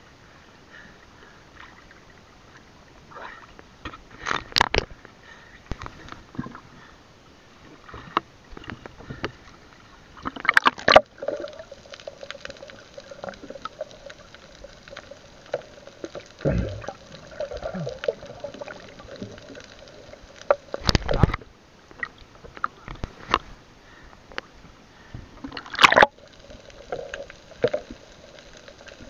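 Seawater sloshing and gurgling around a camera in a waterproof housing as it moves at and under the surface, broken by several sharp knocks and splashes.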